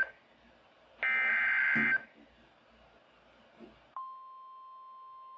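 Emergency Alert System SAME header from a Midland WR120 weather radio's speaker: a one-second burst of rapid data tones, the last of three identical bursts. About two seconds later the steady single-pitch NOAA Weather Radio 1050 Hz warning alarm tone begins, announcing a new warning.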